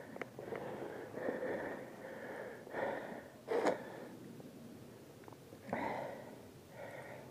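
A person breathing hard after skiing through deep powder: several separate breaths in and out, the loudest about three and a half seconds in.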